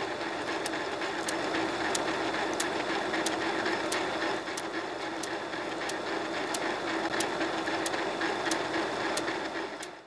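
Film projector running: a steady whir with a regular tick about every two-thirds of a second, cutting off suddenly at the end.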